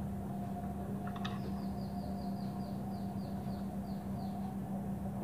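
A steady low hum, with a few clicks about a second in, then a rapid run of about a dozen short, high, falling chirps, about four a second, lasting some three seconds.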